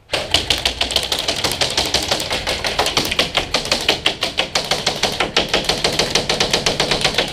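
Airsoft gunfire in a fast, even rattle of sharp clicks, sustained for several seconds, starting and stopping abruptly.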